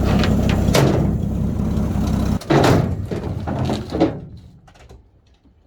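A 1979 Jeep J10's AMC 258 inline-six runs steadily, then stops abruptly about two and a half seconds in. A few clunks and knocks follow.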